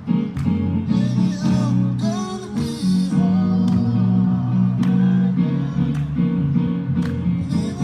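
A gospel song with guitar accompaniment and a singing voice.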